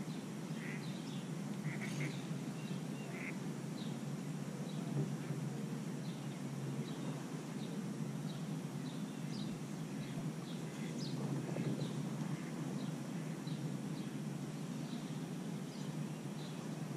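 Ducks calling: short quacks and high peeps scattered throughout, over a steady low background rush.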